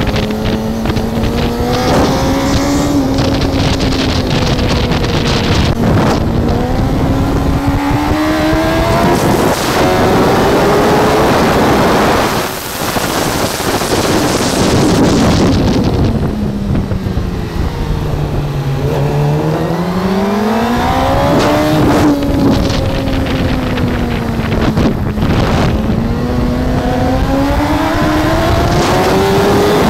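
Superbike engine heard from onboard at speed, its pitch climbing through the gears with short breaks at the shifts, falling away under braking about twelve seconds in and sinking lowest around two-thirds through before it pulls up again. Wind rush over the bike runs underneath.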